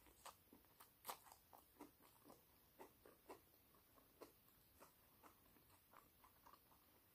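Faint chewing of a mouthful of open sandwich: soft, irregular mouth clicks and small crunches, one or two a second.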